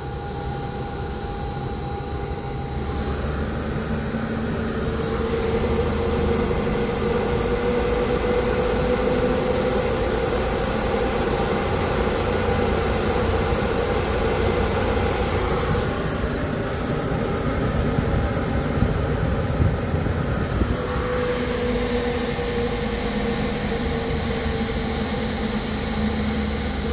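Supply fan of an AAON rooftop unit, driven by a Baldor motor fitted with new bearings, running: a steady rush of air with a low hum. It gets louder over the first six seconds or so, then holds even, with no bearing howl.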